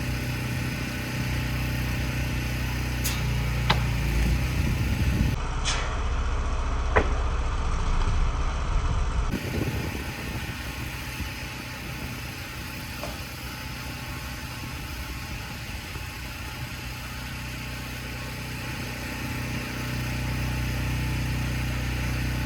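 Pressure washer's petrol engine running steadily, with a few short sharp clicks in the first half.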